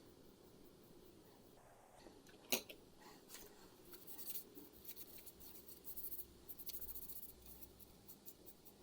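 Faint scratching and light tapping of hands working a small 3D-printed plastic part, with one sharp click about two and a half seconds in.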